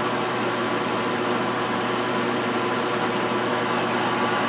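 Milling machine spindle running steadily as a 25/64-inch twist drill bores out a stripped 3/8-16 bolt hole in a Norton Commando aluminium cylinder head, drilling it out for a Helicoil thread insert. Faint high chirps from the cut come in near the end.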